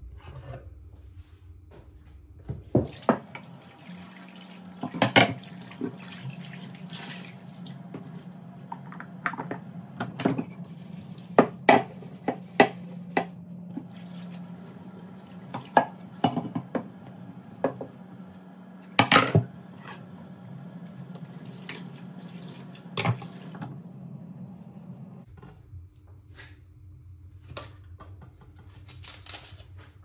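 Kitchen tap running into a sink while a bamboo cutting board is rinsed under it, with repeated sharp knocks and clatter of the board and dishes against the sink. The water comes on about three seconds in and is turned off about five seconds before the end.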